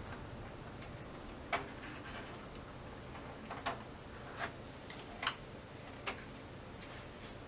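A few sharp, irregular clicks and light taps, about six in all, as the optical sheets and metal frame of an LCD TV's backlight assembly are handled and pressed into place by hand.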